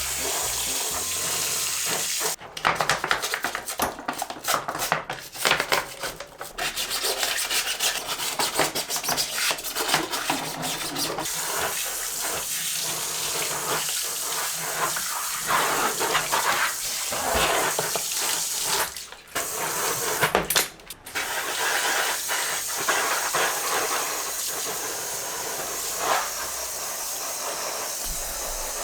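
Running water, a steady hiss with brief interruptions, flickering on and off for a few seconds near the start and cutting out twice for a moment about two thirds of the way in.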